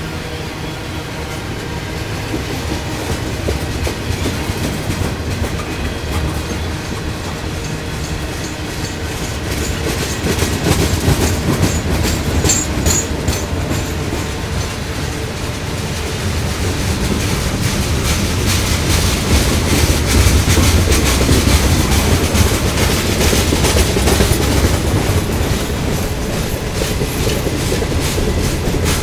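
Freight train cars rolling past close by: a steady rumble of steel wheels on the rails with the clickety-clack of wheels over rail joints, getting louder past the middle.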